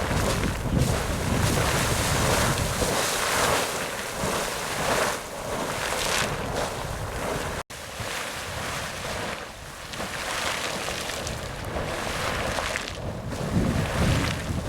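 Sawmill Geyser erupting: a fountain-type geyser throwing brief, overlapping splashing bursts of water, heard as a steady, uneven rush of splashing, with wind rumble on the microphone. The sound cuts out for an instant about halfway through, then carries on.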